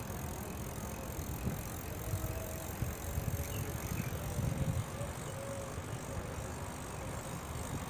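Makeraley mountain bike being ridden along a concrete path: a steady low rumble of tyres rolling, with wind buffeting the phone's microphone.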